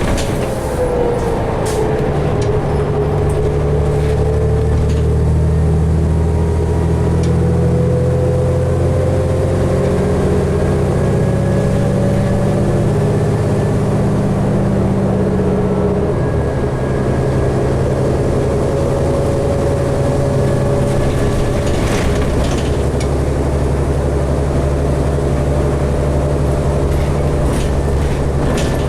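2012 New Flyer D60LFR articulated diesel bus under way, heard from inside the cabin: a steady low engine drone with a drivetrain whine that dips about a second in, then slowly rises and falls with road speed. The drone changes pitch around the middle, and a few short rattles come through.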